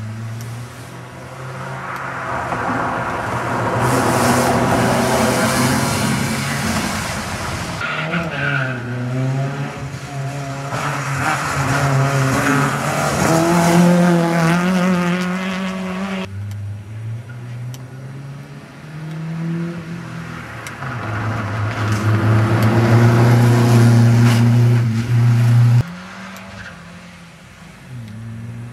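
Rally car engines revving hard as cars drive past one after another, the pitch climbing and dropping with the throttle and gear changes. The sound changes abruptly about eight, sixteen and twenty-six seconds in.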